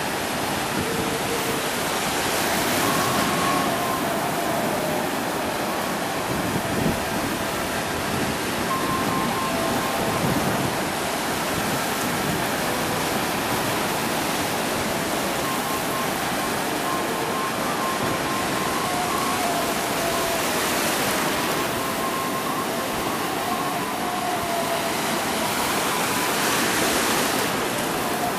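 Ocean surf breaking and washing over the shallows: a steady rush of foaming water that swells louder several times as waves come in.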